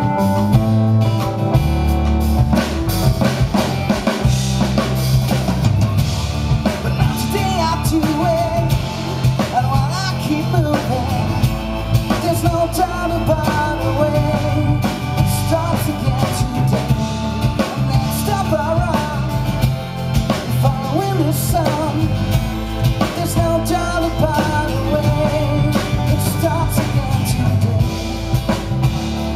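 A live band playing through a PA: a man singing over acoustic guitar, keyboard and drum kit, with the voice coming in several seconds in.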